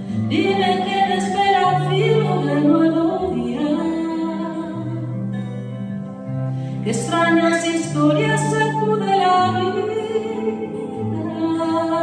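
A woman singing a slow song with long held notes, in two phrases, the second beginning about halfway through, over an instrumental accompaniment of sustained low notes.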